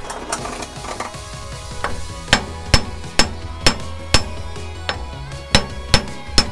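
Hammer striking the rear driveshaft flange where it bolts to the differential of a Toyota pickup, to knock the stuck shaft loose. The sharp metallic blows start about two seconds in and come about twice a second.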